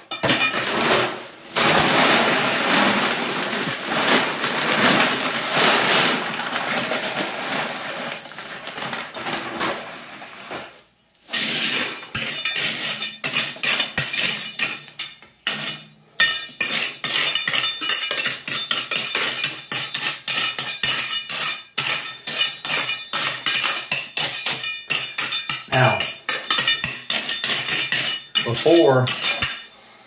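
Crushed gravel rattling and scraping against a steel hand trowel as it is raked and spread in the hole. For the first ten seconds or so it is a continuous rushing rattle of stones, then it breaks into many quick, short clinking scrapes.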